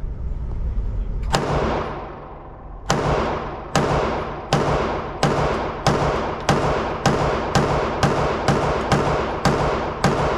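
A semi-automatic firearm firing a string of single shots, one then a pause, then about thirteen in quick succession that speed up toward the end, each crack followed by a long echoing tail.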